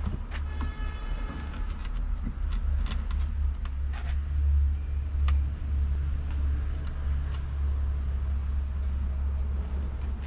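A steady low rumble under a few sharp clicks and knocks and a short squeak in the first couple of seconds, as a lever bar braced on a wooden plank pries the inner mould core up out of a freshly set concrete pot.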